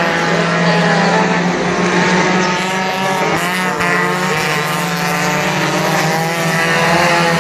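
A pack of mini stock race cars going past at racing speed, several engines heard at once, their pitches rising and falling as the cars pass.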